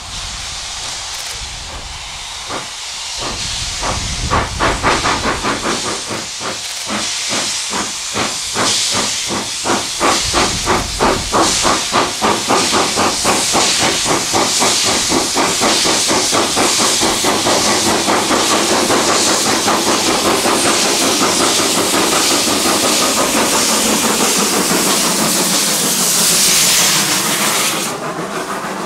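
Slovenian Railways class 33 (ex-DRB class 52) 2-10-0 steam locomotive starting away, its open cylinder drain cocks hissing steadily. Exhaust chuffs start a few seconds in and quicken as it gathers speed until they merge into the hiss; near the end the hiss drops away as the engine passes.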